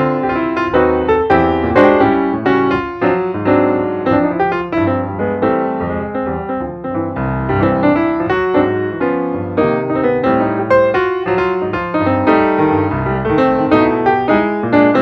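Background piano music: a continuous flow of struck notes.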